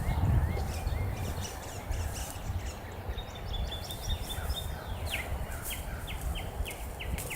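Wild birds chirping, with a run of short repeated notes at about three a second in the second half, over a steady low rumble of wind on the microphone.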